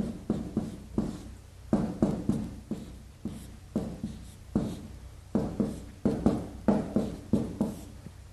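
Chinese characters 微波炉 being written out by hand: an irregular run of short, sharp writing strokes, roughly two a second, each cutting in suddenly and fading quickly.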